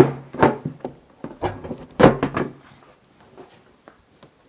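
A snorkel body knocking and bumping against a Toyota Prado 150's body panels as it is set in place, several sharp knocks in the first two and a half seconds, then only small ticks.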